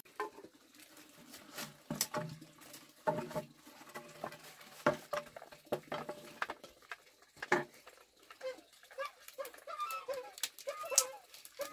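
Hollow clacks and knocks of bamboo poles and split bamboo strips being picked up, knocked together and laid down, a dozen or so scattered strikes. In the last three seconds short repeated bird calls, like a hen clucking, join in.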